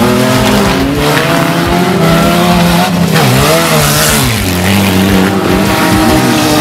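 Several stock car engines revving over one another, their pitches rising and falling as the cars race on a dirt track, over a steady hiss of tyres on loose dirt.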